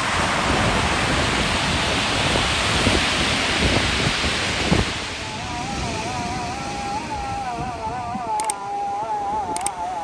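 Heavy storm surf rushing and breaking on the shore for about five seconds. Then the surf grows quieter and background music with a wavering melody comes in over it, with two short clicks near the end.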